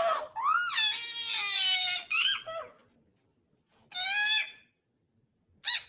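High-pitched, wavering squealing cries, four of them, the first long and the rest short, separated by brief silences.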